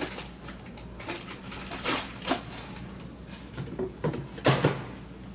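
Handling noises: several short knocks and rustles, the loudest about four and a half seconds in, over a steady low hum.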